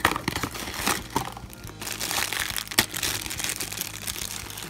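Crinkling and crackling of a thin black plastic blind bag being handled and pulled open, with sharp clicks from the small cardboard box, over background music.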